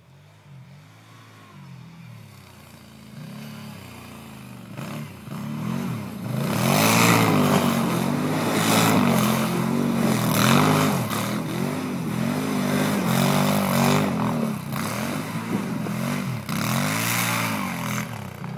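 Can-Am Renegade 800 XXC ATV's V-twin engine coming closer from a distance and growing steadily louder, then revved hard up and down over and over, roughly every second or two, as the quad slides around close by.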